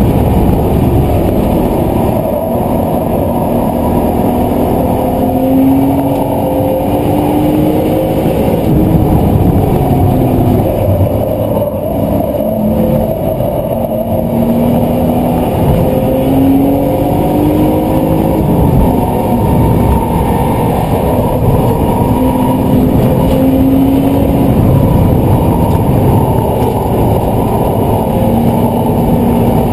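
BMW Z4's engine heard from inside the cabin, pulling and rising in pitch under acceleration, then dropping back at each upshift, several times over, above steady road and wind noise.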